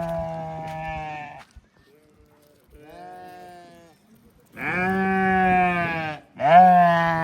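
Sheep or goats bleating: a run of long, drawn-out bleats, each lasting a second or more, one of them fainter and the last two the loudest.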